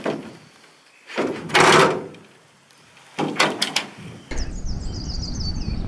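Aluminium canoe hull knocking and scraping hollowly as a man steps in and shoves off from the bank: a long scrape about a second in, then a cluster of knocks. After an abrupt change a little past four seconds, wind rumbles on the microphone with high chirps over it.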